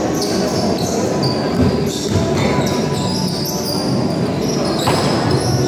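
Basketball game in a gym: a ball bouncing on the court over a steady din of crowd and players, with many short high-pitched squeaks.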